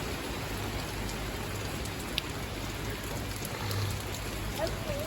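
Heavy rain pouring down steadily, an even hiss with the odd sharper drop tick.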